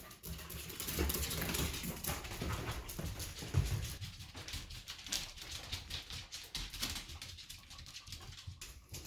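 Two corgis scurrying about on a search, with many quick clicks and patters of paws and claws.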